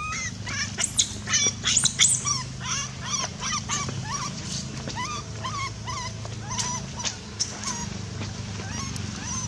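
Baby long-tailed macaque crying: a string of short, high-pitched squeals and whimpers, several a second, loudest and shrillest in the first two seconds, then settling into repeated shorter cries. A steady low hum runs underneath.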